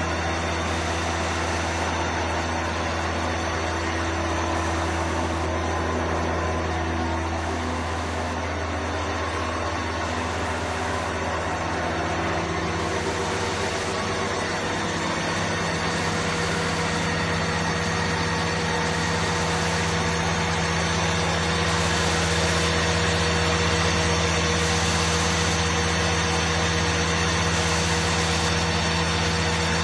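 Four-spindle gun drilling machine running: its electric spindle motors and drilling give a steady machine hum with several fixed tones, growing slightly louder past the middle.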